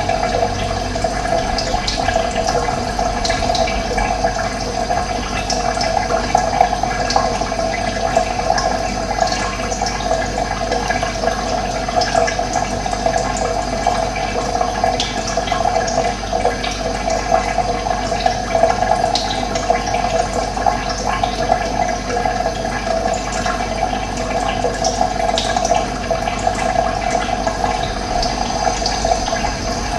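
Running water flowing steadily, with scattered short bird chirps above it.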